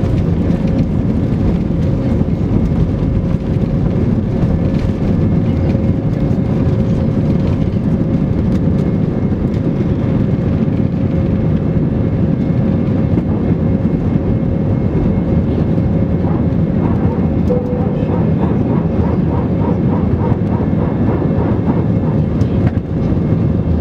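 Airbus A320 airliner taking off: a steady, loud roar of jet engines and rushing air, with a faint steady hum in it.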